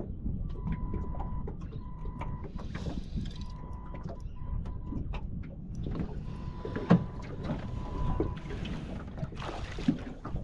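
Wind buffeting the microphone and water slapping against a small boat's hull, with scattered clicks and knocks and one sharp knock about seven seconds in. A faint high tone comes and goes.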